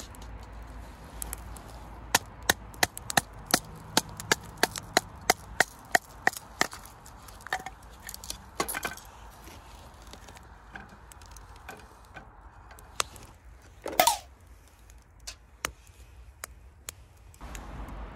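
Thin wooden kindling being split with a knife: a run of sharp wooden knocks, about three a second for about five seconds. Then scattered lighter taps and one louder crack about fourteen seconds in.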